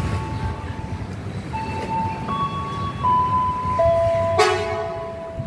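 A simple melody of clear single tones steps from note to note over a low railway-station rumble. About four and a half seconds in, a short train horn blast sounds.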